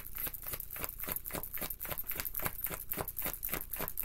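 A deck of tarot cards being shuffled by hand: a quick, even run of soft card slaps, about six a second.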